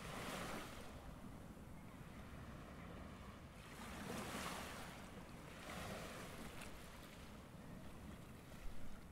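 Sea waves washing over a rocky shore, a steady rush that swells and eases in irregular surges every couple of seconds.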